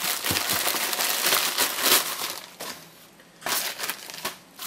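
Plastic poly mailer bag crinkling and crackling as it is pulled open and emptied, dense for about the first two seconds, then a few separate rustles as the bag and the padded envelopes inside are handled.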